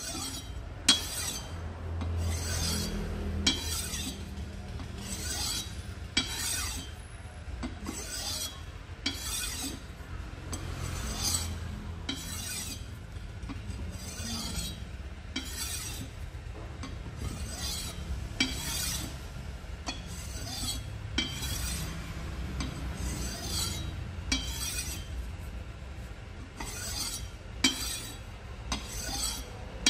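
Steel knife blade stroked across a clay brick, a dry scraping rasp about every three-quarters of a second. The strokes are light honing passes that strip off the burr left by grinding.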